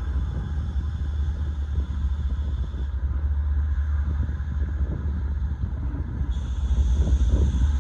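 Union Pacific gravel train rolling past with a steady low rumble. Faint thin high-pitched tones above it change pitch twice, about three and six seconds in.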